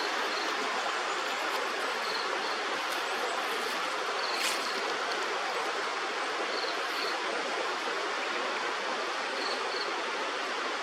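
Steady rush of a flowing river. Faint short high chirps in pairs come every two or three seconds, and a single sharp click sounds about four and a half seconds in.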